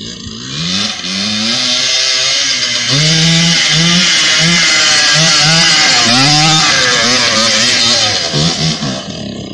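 A quad (ATV) engine being ridden hard, revving up and dropping back again and again, its pitch climbing in short repeated runs. It grows louder about three seconds in as the quad comes close.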